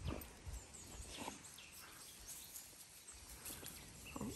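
Quiet outdoor ambience with faint, short, high bird chirps now and then, and a couple of brief soft rustles, about a second in and near the end.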